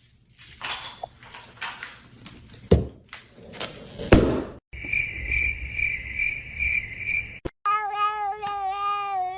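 A cat meowing: one long, wavering meow starting near the end. Before it come a few seconds of scuffling and thumps, then a steady high chirping tone pulsing about three times a second.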